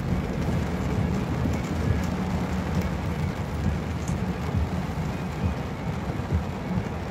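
Heavy rain beating steadily on a car's roof and windshield, heard from inside the cabin, over a low rumble of the car driving along a flooded road.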